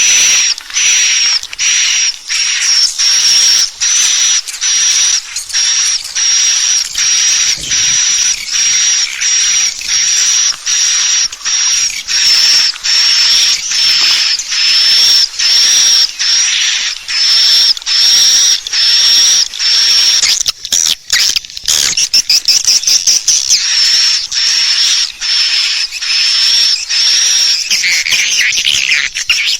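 Swiftlet call recording used to lure swiftlets to nest: short, high chirping twitters repeated steadily, about one and a half a second, with a brief run of faster chatter about two-thirds of the way through.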